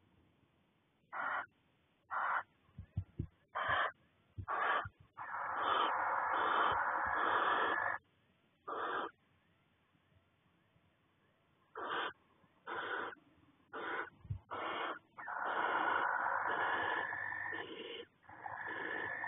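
Barn owls giving hoarse, hissing calls. Several short hisses are broken by two long, drawn-out hissing screeches of two to three seconds each, the second starting about two-thirds of the way through. A few faint knocks fall between the calls.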